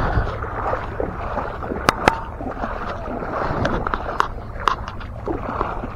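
Shallow seawater sloshing and splashing around the legs of a person wading across a tidal flat, a steady rough wash. A few sharp clicks stand out about two seconds in and again around four to five seconds in.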